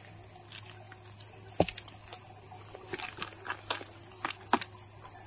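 Steady high-pitched insect drone, with scattered light clicks and rustles from a plastic tub being handled and weaver ant eggs poured into it from a plastic basin; the sharpest click comes about a second and a half in.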